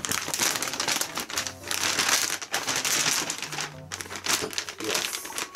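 Plastic zip-top bag crinkling as a sneaker is pushed into it heel first, with background music underneath.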